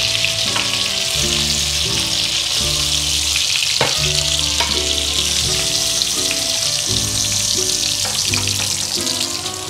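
Food frying in a pan of hot oil: a steady, dense sizzle, with a single light clink about four seconds in. Background music plays underneath.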